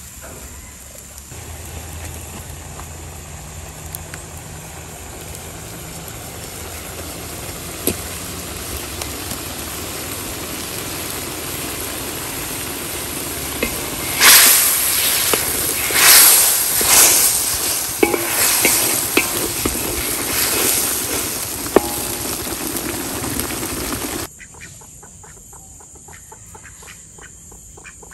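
Chilli sambal paste sizzling steadily in hot oil in a wok as it cooks down until the oil separates. Through the second half, a wooden spatula scrapes and stirs it in a run of loud strokes. The sizzling cuts off abruptly near the end, leaving quieter outdoor background.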